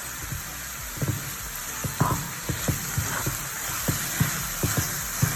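Minced chicken and tomato puree sizzling in a frying pan, with about a dozen short knocks from about a second in as the mixture is stirred.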